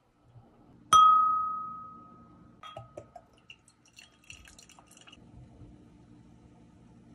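A sharp glass clink about a second in that rings on as a clear tone, fading over a second and a half, then a softer clink. Then beer poured from a glass bottle into a stemmed beer glass, with light fizzing and crackling of foam.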